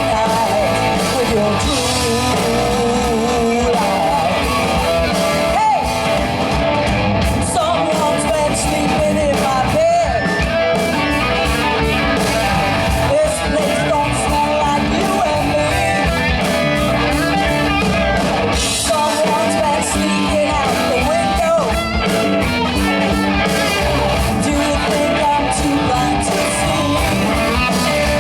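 Rock band playing live: electric guitar, bass and drums with a male lead vocal singing over them.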